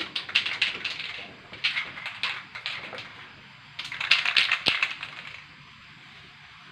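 Aerosol spray paint can being shaken, its mixing ball rattling in three quick bursts of clicks, then stopping about five seconds in.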